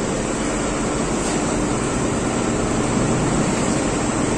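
Steady room noise: an even hiss over a low hum, unchanging, typical of ventilation or machinery running in a workshop room.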